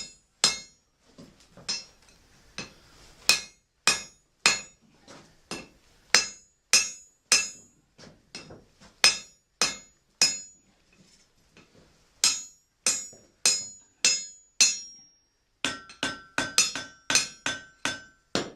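Blacksmith's hammer striking iron on an anvil, in runs of evenly spaced blows about two a second with short pauses between runs. Near the end the blows come faster and the anvil rings with a clear tone.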